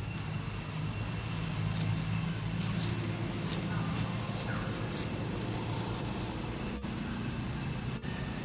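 Low, steady engine rumble of a motor vehicle, with faint, steady high-pitched tones above it.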